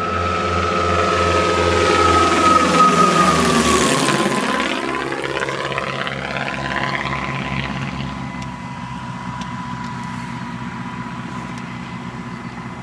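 Twin-turboprop Beechcraft passing low overhead on its landing approach. The turbine whine and propeller drone grow louder, the whine drops in pitch as the aircraft goes by about four seconds in, then it fades steadily as it moves away over the runway.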